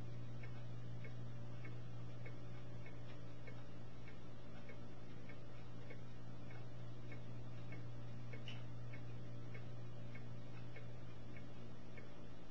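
Steady low mechanical hum with a light, regular ticking about twice a second on top.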